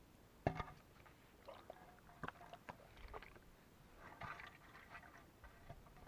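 Handling noises of a plastic plate and plastic bag on the ground: a sharp knock about half a second in, then scattered clicks and rustles, with a cluster of small clicks near the end.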